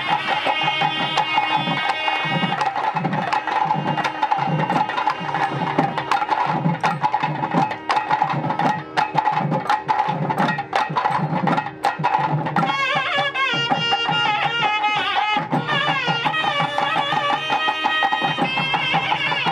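A folk ensemble of reed pipes with flared brass bells and drums. The pipes play a melody over a held drone note, drop out after about three seconds for a fast drum passage, and come back in about twelve seconds in.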